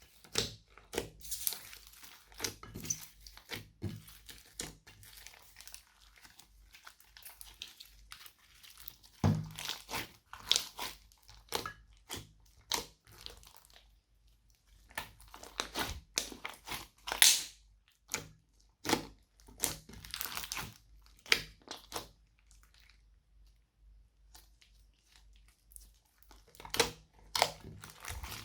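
Slime being squished, stretched and mixed by hand, giving irregular sticky pops, crackles and crunches, with a quieter lull of a few seconds about three quarters of the way through.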